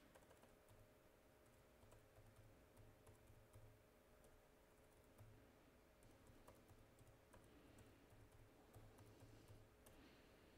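Near silence: faint room tone with scattered, irregular clicks, like someone typing on a computer keyboard.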